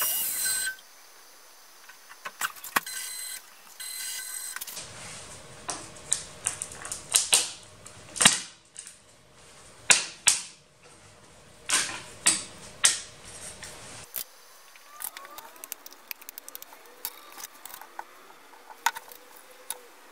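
Hard objects clicking and knocking: irregular clusters of short, sharp clacks. A loud steady machine noise cuts off just under a second in.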